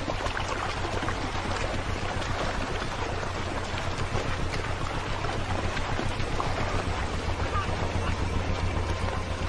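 Lionesses wading through shallow river water, a steady churning and splashing of water around their legs, over a steady low drone.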